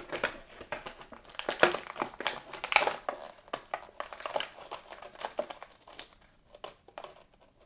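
Plastic action-figure packaging crinkling and crackling in irregular bursts as it is handled, busiest in the first few seconds and dying away near the end.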